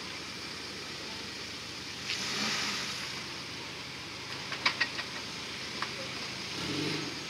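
Suzuki Samurai engine running at a low crawl over rocks, a steady low hum with a short swell near the end. A few sharp clicks and knocks sound a little past halfway, over a faint gritty crunch from the tyres.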